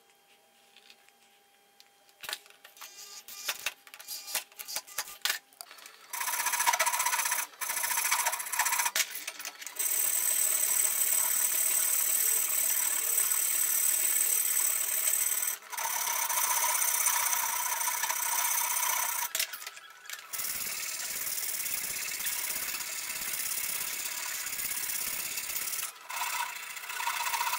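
A few scattered clicks and taps, then a small power tool running steadily against the workpiece for about twenty seconds, with a short break in the middle and a slightly quieter stretch later.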